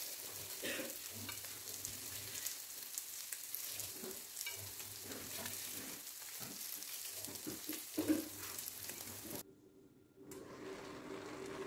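Stovetop cooking: a steady sizzle with light clicks as washed rice is tipped into a pot of simmering pulao liquid, with a louder knock about eight seconds in. It cuts out briefly near the end and gives way to a low steady hum.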